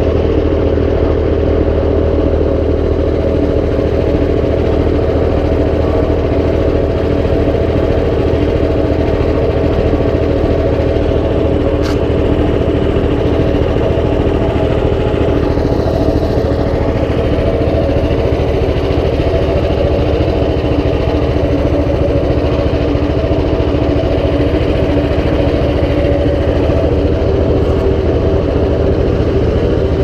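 Nova GTS1500 wood chipper running steadily with nothing being fed in, its engine holding an even speed.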